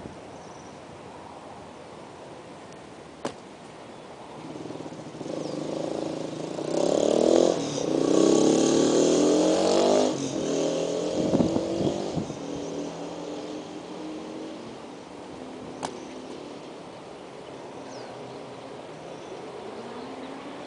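A motor vehicle's engine passes by, rising to its loudest about a third of the way in and then fading away, with its pitch sliding as it goes. There are two sharp clicks, one before the vehicle comes and one after it has gone.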